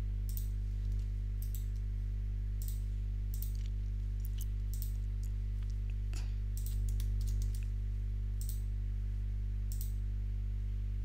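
Computer mouse and keyboard clicks, about a dozen sharp, irregular clicks, over a steady low electrical hum.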